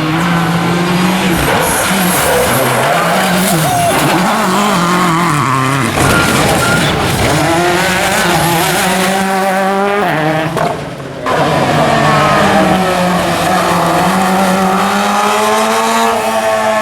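Rally car engines revving hard on a stage, the pitch climbing and dropping again and again through gear changes. The sound changes abruptly about six seconds in and again about ten seconds in, with a brief drop in level just before the second change.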